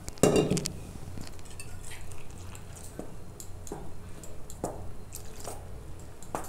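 Water poured from a measuring cup onto gram flour in a steel bowl, louder in the first half second, then a steel spoon stirring the damp flour into batter, with soft scattered squelches and taps against the bowl.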